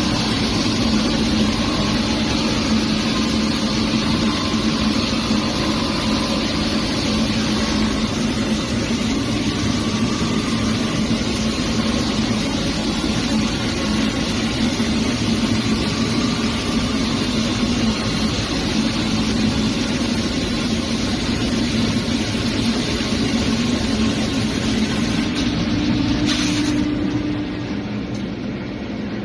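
CNC plastic pipe threading machine running, its rotating cutter head cutting a thread into the end of a PVC pipe with a steady mechanical hum and hiss. The noise drops off somewhat near the end.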